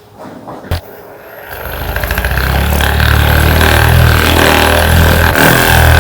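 A small electric motor starts up and runs steadily, with a low hum and a steady high whine, after a quiet moment broken by one sharp click.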